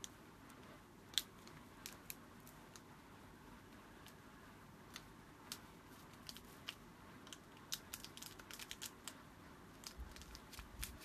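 Faint scattered clicks and crinkles from a powdered drink sachet being handled and opened, coming more often in the second half, with a few soft low thumps near the end.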